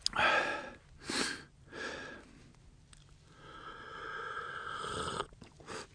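A man breathing and sipping a hot drink from a vacuum-bottle cup. Three short breathy exhales come in the first two seconds, then a longer drawn-out sound as he drinks.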